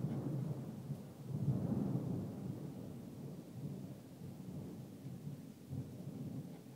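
Thunder rumbling low and rolling, swelling about a second and a half in and then slowly dying away.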